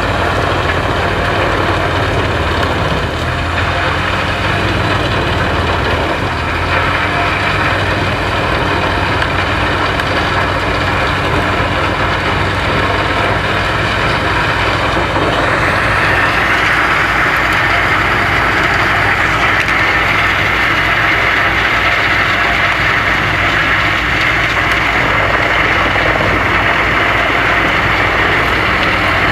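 Wood chipper running steadily; about halfway through it gets louder and brighter.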